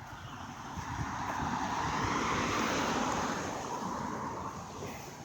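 A rushing noise that swells to a peak two to three seconds in and then fades away.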